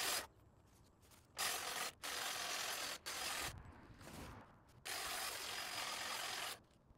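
Snapper 48V cordless hedge trimmer cutting a shrub, heard as a rushing, hiss-like rasp from the sped-up time-lapse soundtrack. It starts and stops abruptly in about four bursts, with near-silent gaps between them.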